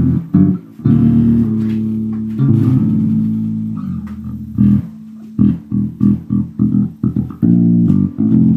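Warwick electric bass played fingerstyle through an amp: a funky line with a few held notes early on, then about five seconds in a run of short, choppy, staccato notes.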